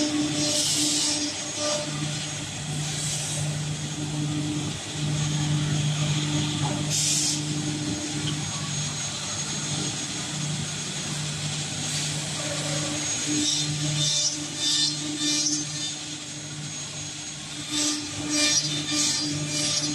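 Two-table CNC mortise milling machine running: a steady motor hum that drops out and returns several times, with short hissing bursts, several in quick succession in the second half.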